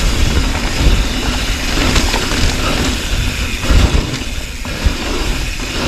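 Mountain bike descending a dirt trail: wind rumbling over the camera microphone, with the hiss of knobby tyres on loose dirt and a few knocks from the bike rattling over bumps.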